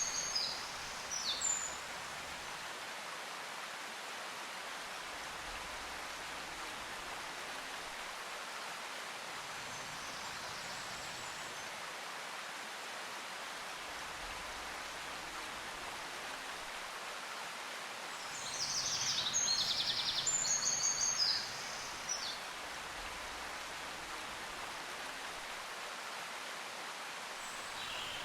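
Steady hiss like running water, with a few quick bird-like chirps at the start and a louder bout of chirping about two-thirds of the way through.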